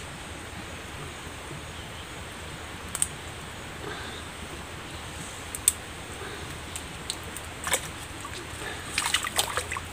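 Shallow creek water trickling steadily, with occasional sharp clicks and splashes as hands turn over stones in the water, several of them close together near the end.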